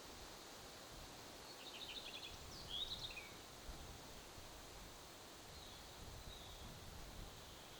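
Wind rumbling faintly on the microphone. A bird calls through it: a quick run of high ticks and a short chirp about two seconds in, then a fainter call near the end.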